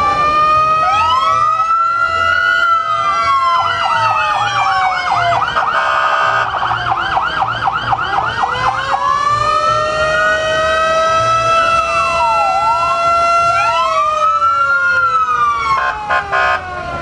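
Several emergency-vehicle sirens sounding together, their rising and falling wails overlapping, with a fast warbling yelp in the middle. A short horn blast sounds partway through and again near the end.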